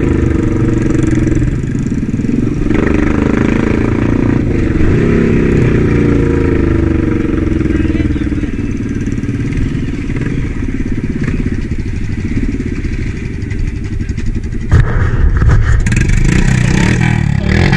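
Quad bike (ATV) engine running at low riding speed, its pitch rising and falling with the throttle. About fifteen seconds in, a louder, rougher noise comes in over the engine.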